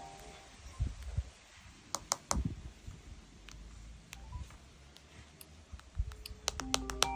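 Scattered sharp clicks and a few dull low thumps in a quiet gap between mobile phone ringtones. Near the end a new ringtone melody starts, with clicking notes.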